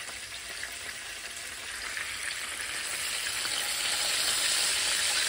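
Oil sizzling and crackling in a frying pan where frozen green peas and a chicken wing are frying. The sizzle grows louder over the second half.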